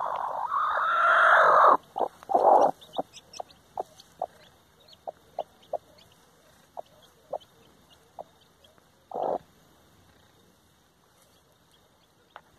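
Brahma hen calling loudly and at length, then clucking softly in a string of short clucks, with newly hatched chicks peeping high and thin. She gives one more short call about nine seconds in.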